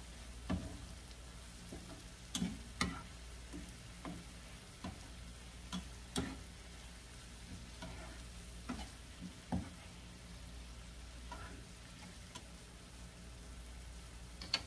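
Slotted spatula stirring sliced hot dogs, mushrooms and tomatoes in a non-stick frying pan: irregular knocks and scrapes against the pan, over a faint steady sizzle.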